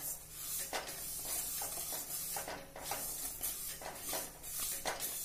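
Wooden spatula stirring flax seeds as they dry-roast in a metal kadhai: the seeds make a steady rustling scrape against the pan, with a few sharp clicks.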